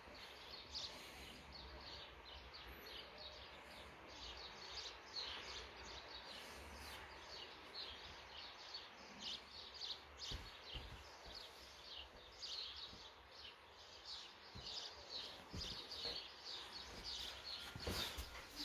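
Faint chirping of small birds, a steady run of short high chirps. A brief louder rustle comes near the end.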